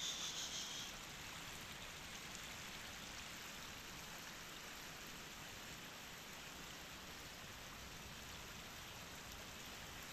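Shallow stream running over a stony bed, a steady even rush of water, with a brief high buzz in the first second.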